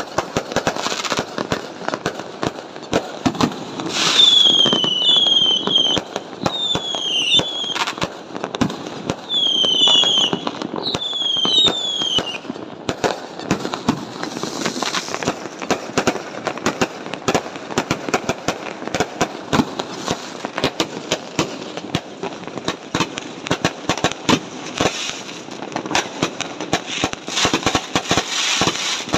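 Fireworks and firecrackers: a dense, continuous run of pops, cracks and bangs. Short falling whistles sound from about four to twelve seconds in.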